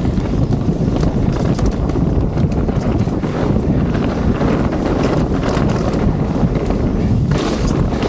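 Heavy wind noise on the microphone over a mountain bike descending a dirt trail at speed: tyre roar with scattered clicks and rattles from the bike.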